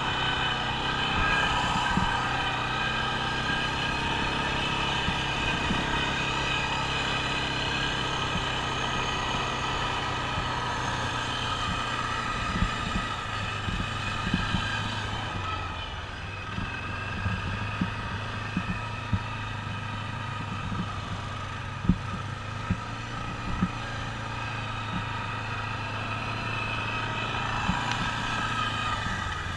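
ATV engine running steadily at low revs, with a slight shift in its note about halfway through. Scattered short clicks and knocks come in during the second half.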